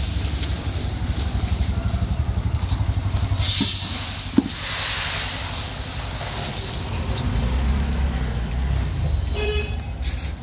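A motor vehicle engine running close by with a fast low pulsing, a short knock a little before the middle, and a brief horn toot near the end.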